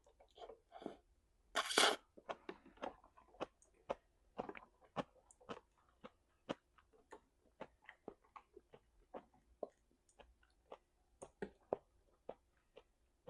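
Close-miked mouth sounds of a person chewing food: irregular wet smacks and clicks, a few a second, with one louder, longer noisy sound about two seconds in.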